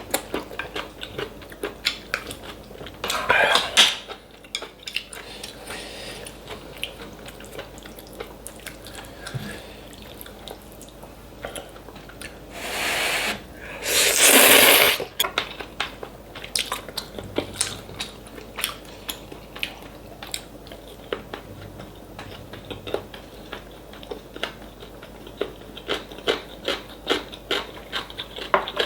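Close-miked eating of kalguksu noodle soup: utensils clicking against the bowl and wet chewing, with three loud noisy slurps at about 3 seconds, 13 seconds and 14 seconds.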